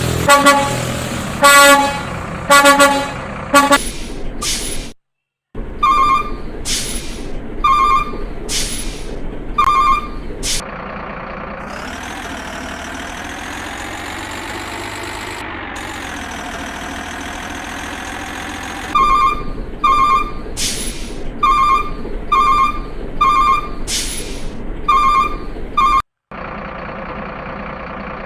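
Runs of short horn-like toots, about one every second, with a wavering drawn-out tone for several seconds in the middle.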